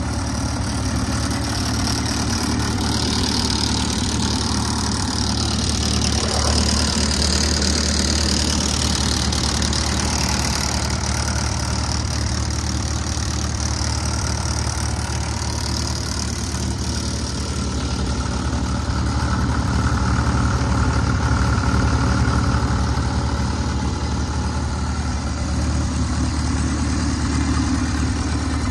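Fordson Super Major tractor's four-cylinder diesel engine idling steadily.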